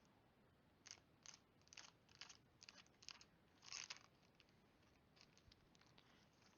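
Faint crinkling and rustling of handled foil booster-pack wrappers: a series of short crackles, about seven in the first four seconds, then a few fainter ones.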